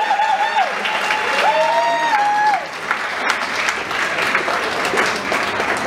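Theatre audience applauding, a dense patter of many hands clapping. Drawn-out cheering calls from a few voices ride over it for the first two and a half seconds, then the clapping carries on alone.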